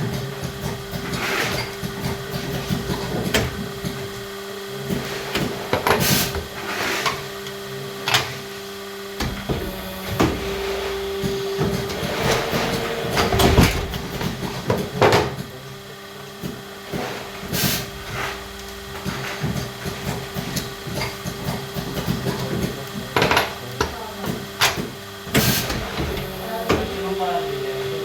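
Cable-making machinery running with a steady hum, with irregular clicks and knocks over it throughout.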